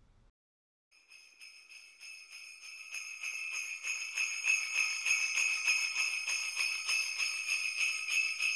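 Jingle bells shaken in a steady, fast rhythm. They start about a second in and grow louder over the next few seconds, then keep ringing at an even level.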